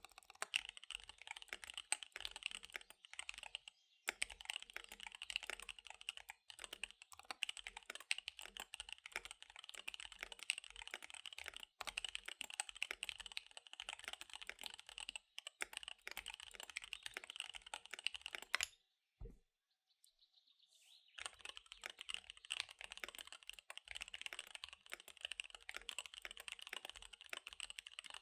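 Fast typing on a KBD75 V3 mechanical keyboard with SP-Star Dark Magic Girl tactile switches and DSA keycaps: a rapid, continuous patter of keystrokes. The typing stops for about two seconds about two-thirds of the way through, then resumes.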